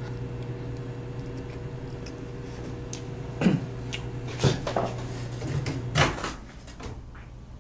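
A steady low hum runs under a few separate knocks and clatters of fork, plate and chair as someone eats and then gets up from a table. The loudest clack comes about six seconds in, and the hum stops soon after.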